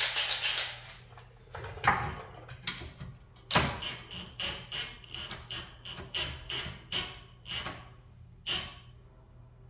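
A pry tool worked around the seam of a Honda K24 engine's RTV-sealed oil pan to break it free. It gives a rough burst at the start, a few separate knocks, then a run of short metallic strokes at about two a second.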